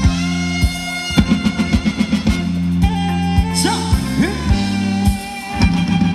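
Thai ramwong dance music from a band with a drum kit, the drum keeping a steady beat of about two hits a second under sustained instrumental tones, with a few rising pitch slides near the middle.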